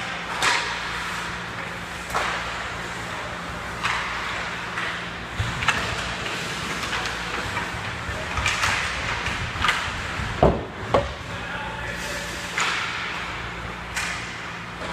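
Ice hockey play close to the net: skate blades scraping and carving on the ice in repeated short sweeps, with stick and puck clatter, over a steady low arena hum. Two heavy thuds about ten and eleven seconds in are the loudest sounds, puck or bodies hitting the net or boards.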